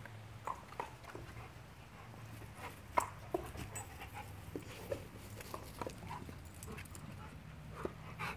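Dogs giving scattered short whimpers and yips during excited play, the sharpest about three seconds in, over a steady low hum.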